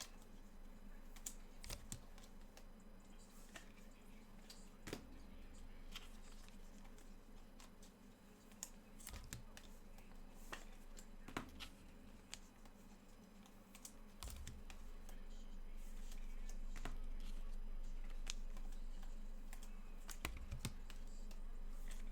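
Irregular light clicks and taps from hands working at a desk, over a steady low hum; the background noise gets louder about two-thirds of the way through.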